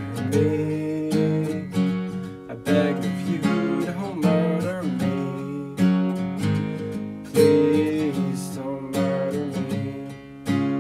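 Acoustic guitar strumming chords in an instrumental passage of a folk song, with strong strokes every second or two.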